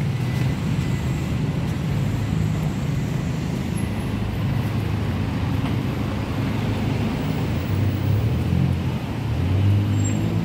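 City street traffic: a steady low rumble of passing and idling cars, swelling briefly near the end.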